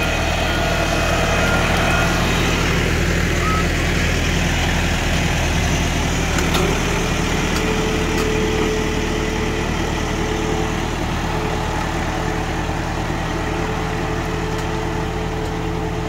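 Farm tractor's diesel engine running steadily under load as it drags a rear-mounted ditching blade through wet mud, cutting a roadside drainage ditch.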